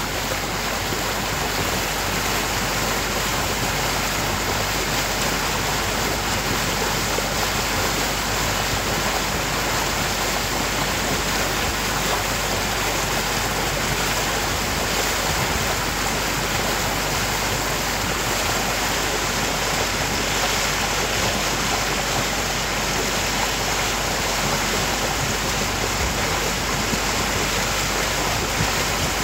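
Steady rushing noise of water and wind from a boat under way on open water, with a constant low rumble underneath.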